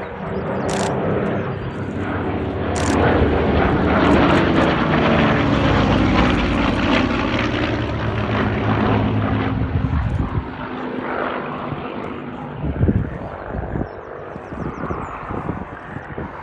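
A Second World War propeller fighter passing low, its V12 piston engine building to a loud drone and dropping in pitch as it goes by, then fading away.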